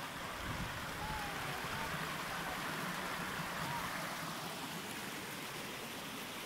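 Steady rushing of running water, with a few faint short chirps about a second in and again near the middle.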